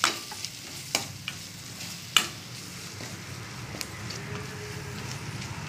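A spoon stirring and scraping a spiced tomato-onion masala frying in a stainless steel kadai, over a steady sizzle. A few sharp clinks of the spoon against the pan come in the first couple of seconds, the loudest about two seconds in.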